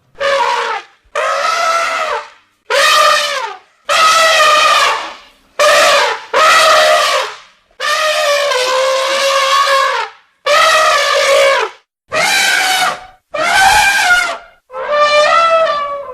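Elephants trumpeting: a run of about a dozen separate loud trumpet calls, each half a second to two seconds long, cut in sharply one after another. Some calls hold a steady pitch and others bend up and down.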